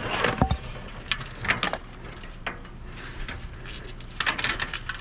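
Scattered knocks and clinks of hard objects being handled and pried at, with a sharp knock about half a second in and a burst of clatter near the end.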